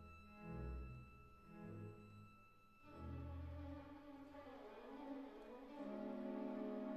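Background music: bowed strings playing slow, held notes, with deep low notes early and a louder sustained chord entering near the end.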